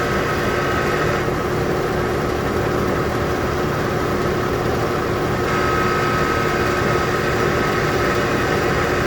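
Air conditioner running with a steady grinding noise, a sign that it needs servicing. A higher whine in the sound drops out about a second in and comes back about five seconds in.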